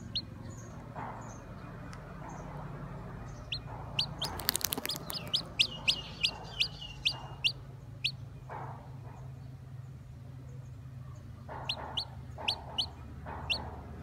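Hatching chicken chick peeping: short, high, rising peeps, about a dozen at roughly two a second starting about four seconds in, then a few more near the end. A brief run of sharp clicks comes with the first of the peeps.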